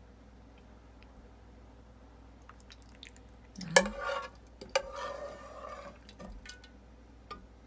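Metal ladle serving soup into plastic deli containers: a sharp clink a little past halfway, then a couple of seconds of soft liquid and clattering sounds with a brief ringing tone.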